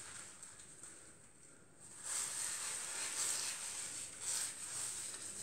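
Hands working through wet hair, a soft wet rustling that grows louder about two seconds in and rises and falls with the strokes.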